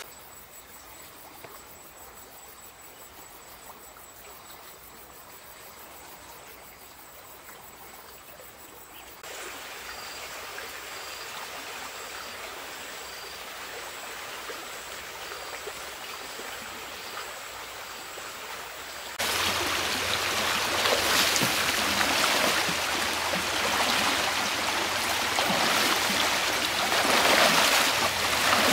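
Insects trilling in a high, steady, fast-pulsing drone, with short high chirps repeating after about nine seconds. Then, about two-thirds of the way in, a shallow stream rushing over rocks cuts in loudly, with splashing as someone wades through it.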